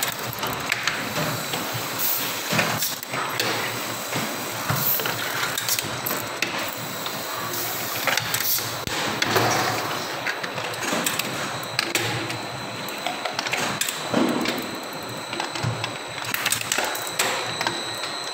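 Automatic rotary soda filling and capping machine running: a steady mechanical clatter of many clicks and knocks from its moving filling heads, star wheels and cappers, with a faint steady high whine underneath.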